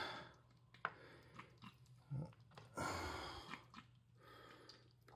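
Calico kitten eating from a dish: faint chewing and small clicking sounds, with a short rustle about three seconds in.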